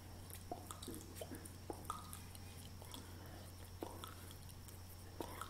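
Quiet room tone with a steady low hum and a handful of faint, soft, irregular clicks.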